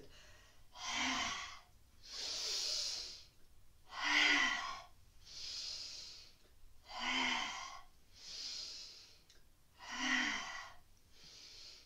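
A woman's forceful hara breathing in the 'chopping wood' yoga exercise: four voiced 'ha' exhales about three seconds apart, each pushed out as the arms swing down, with an audible breath in between each.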